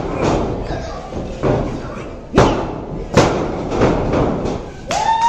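Sharp hand slaps on a wrestling-ring mat: a referee counting a pin, with two loud slaps under a second apart past the middle and a weaker one before them, over crowd chatter. Near the end a held, rising call from the crowd begins.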